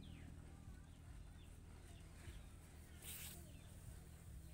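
Near silence with faint chirps of small birds in the background and a low hum, broken by one brief crisp noise about three seconds in.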